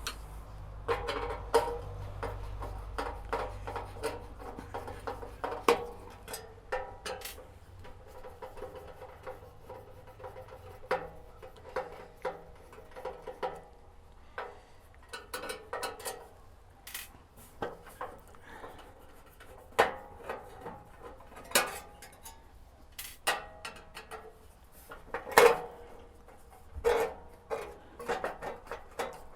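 Metal parts and tools clinking, clanking and knocking irregularly as hardware is handled and set down, some strikes ringing briefly.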